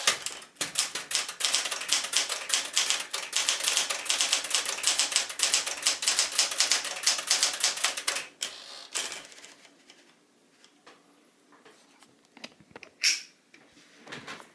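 Smith-Corona Galaxie Deluxe manual typewriter (sold as the Deville Deluxe) being typed on fast, a rapid stream of typebar strikes on the platen. About eight seconds in the typing stops, leaving a few soft scattered clicks and one sharp louder clack near the end.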